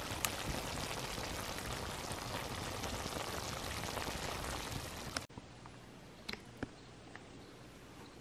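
Tomato-sauce stew bubbling and sizzling in a skillet on a grill over a wood fire: a steady crackle of many small pops. It cuts off abruptly about five seconds in, leaving a much quieter background with a few faint clicks.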